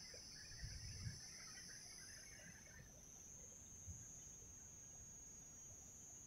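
Faint, steady high-pitched insect trilling from the creekside vegetation, with a softer scattered chirring lower down that stops about halfway, and a couple of soft low bumps near the start.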